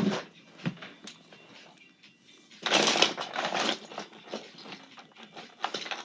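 Small plastic fidget toys being handled: a burst of rustling and rattling lasting about a second, a little over two seconds in, with scattered light clicks before and after it.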